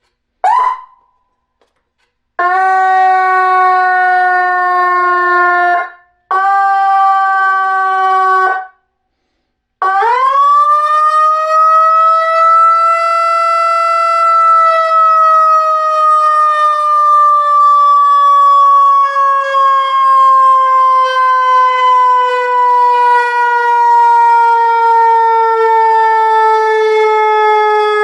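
Whelen electronic siren sounding its simulated mechanical-siren tone. A short rising chirp comes first, then two steady held tones of a few seconds each with short breaks. At about ten seconds the tone winds up quickly and then slowly falls in pitch, like a mechanical siren coasting down.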